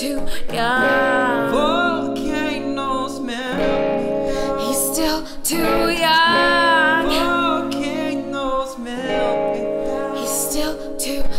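Male and female voices singing together over acoustic guitar, a slow ballad with sustained, wavering sung notes.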